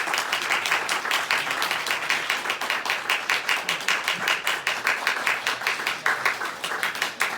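Audience applauding, a roomful of hands clapping steadily, welcoming a speaker to the floor.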